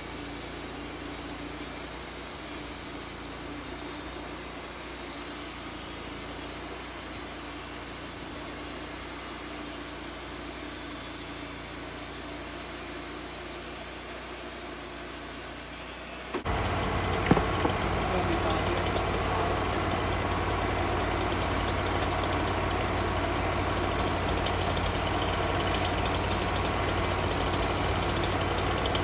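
Portable sawmill's engine running steadily. About halfway through the sound cuts abruptly to a louder, closer engine drone, with one sharp knock just after.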